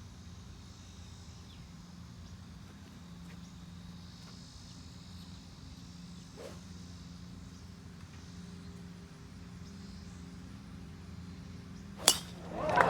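Insects chirring steadily in the background, a faint high hiss that swells and fades. Near the end comes a single sharp crack.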